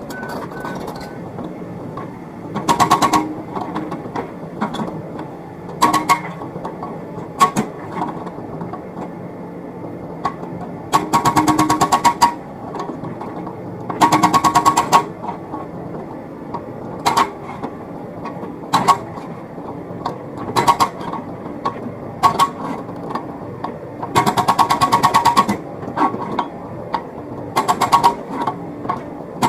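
Hydraulic breaker on a Komatsu PC78US mini excavator hammering in short runs of rapid blows, four runs of about a second each, with single sharp knocks in between. The excavator's engine runs steadily underneath.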